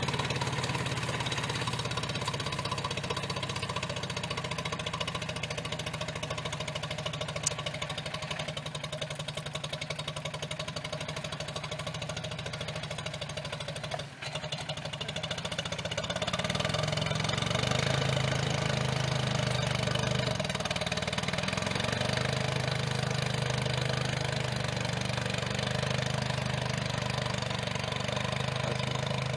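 Old Allis-Chalmers tractor engine running steadily while ploughing. The sound drops out for a moment about halfway, then comes back a little louder.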